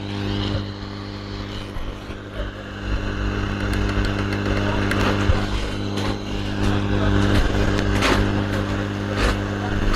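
Hot air rework station blowing on a laptop motherboard to desolder a blown MOSFET: a steady hum under a rushing airflow that grows louder about three seconds in, with a few light clicks.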